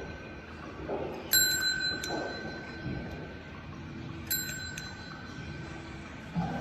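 A small bell struck twice, about three seconds apart, each strike ringing on with a clear tone.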